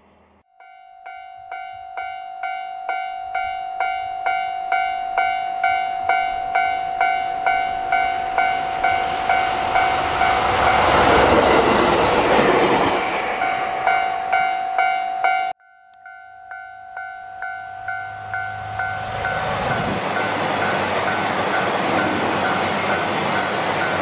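A Japanese level-crossing alarm rings its electronic bell about twice a second as a JR Hokkaido H100 diesel railcar passes, its engine and wheel noise swelling loudest about halfway through. After a sudden cut, the alarm starts ringing again and a diesel limited-express train rolls by, growing louder toward the end.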